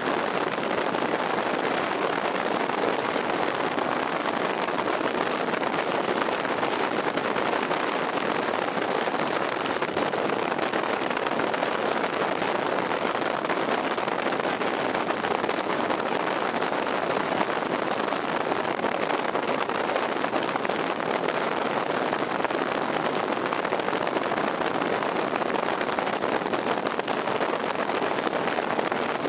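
Steady rush of wind and road noise from a car driving at speed.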